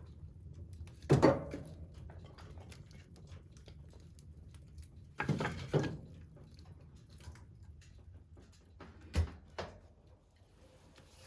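A few separate knocks and thumps in a quiet room: a loud one about a second in, a pair around five to six seconds in, and a duller low thump near nine seconds.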